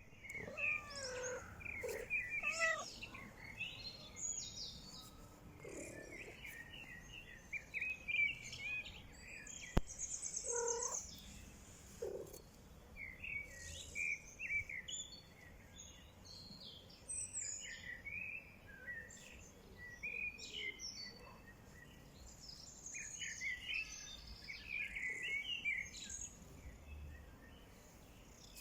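Outdoor birdsong: several birds chirping and trilling in overlapping phrases, with a few lower calls now and then and a single sharp click about ten seconds in.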